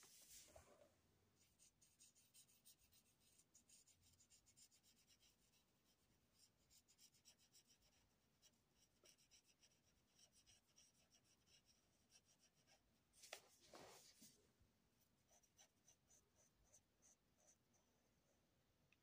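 Faint scratching of a felt-tip marker on paper in quick short back-and-forth colouring strokes. A brief louder sound comes about two-thirds of the way in.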